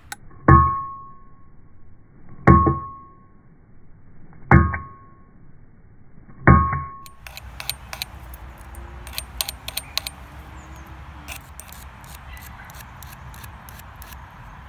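Four heavy hammer blows on an old axe head used as an anvil, about two seconds apart, each a thud with a short metallic ring. Then a small file rasps in quick strokes over the end of a heavy-gauge steel fence wire.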